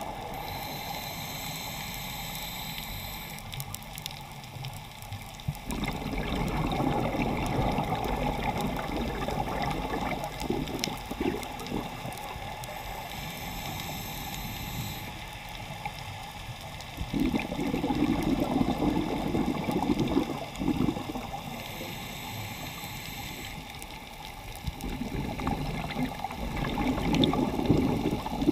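A diver breathing through a scuba regulator underwater. Each breath is a few seconds of high, hissing inhale through the regulator, then a louder rush of exhaled bubbles. The cycle comes round three times, roughly every ten seconds.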